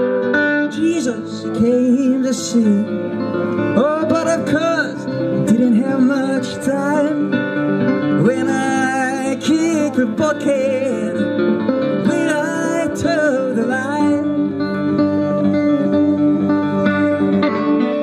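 Live music: a metal-bodied resonator guitar played with singing over it, the voice dropping out about four seconds before the end and the guitar carrying on alone.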